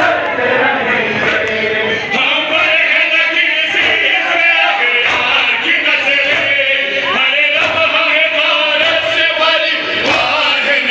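A hall full of men chanting a Shia lament (nauha) together in a loud chorus, with repeated sharp strikes of chest-beating (matam) along with the chant.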